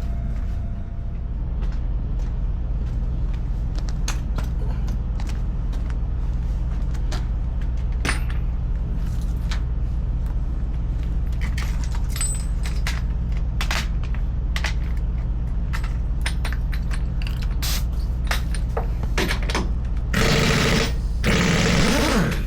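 An engine idling with a steady low hum, with scattered metallic clinks and taps of tyre-changing tools. Near the end, a loud rattling burst of about two seconds.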